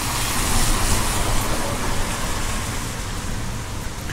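Steady hiss of a wet town street: tyres on the wet road and rain. It swells slightly about a second in and eases off towards the end.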